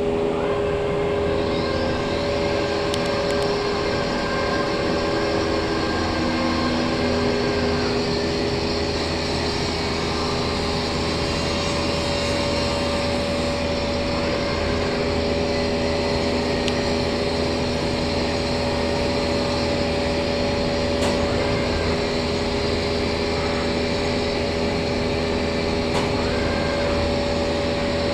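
CNC router for wood and sheet material running steadily: a constant machine hum with a few steady tones over a hiss. Some of the tones drop out about seven seconds in.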